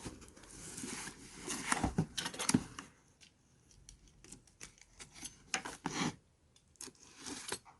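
Cardboard packaging being handled and opened: irregular rustling, scraping and sharp little clicks, busiest about two seconds in, then a short lull before more scattered clicks.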